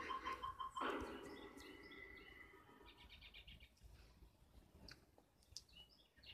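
Faint bird chirps and short trills, with a brief louder sound about a second in that fades away.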